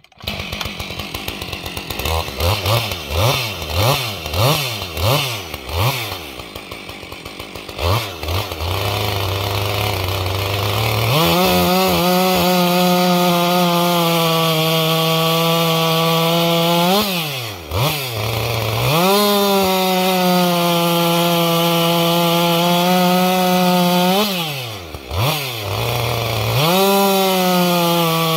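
Husqvarna 562 XP 60cc two-stroke chainsaw with a 20-inch bar, blipped several times, then briefly idling, then held at high revs cutting through a maple log. The revs drop briefly twice before climbing back.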